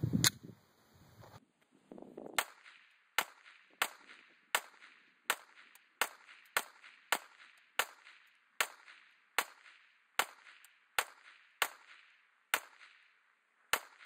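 Gen 4 Glock 17 9mm pistol with a Lone Wolf stainless threaded barrel firing a steady string of about sixteen shots, roughly one every three-quarters of a second, each with a short echo, after a click of handling near the start. The 115-grain Winchester white box rounds feed and cycle with no malfunctions.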